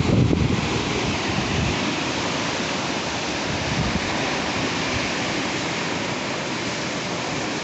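Steady rushing surf of waves washing on a beach, with wind buffeting the microphone in the first second or two.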